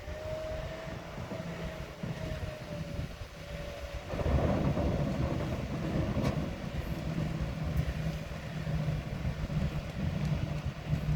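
Grimme Varitron 270 self-propelled potato harvester running. A steady whine is heard for the first few seconds, then about four seconds in a louder rumble and rattle of the machinery sets in and holds.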